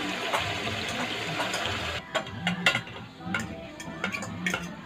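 Beef-skin adobo sizzling steadily in a wok, cutting off after about two seconds; then a series of sharp, irregular clinks and knocks of a plate and utensils.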